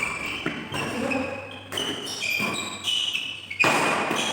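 Badminton doubles rally: sharp racket hits on the shuttlecock roughly every second, with short high shoe squeaks on the court between them.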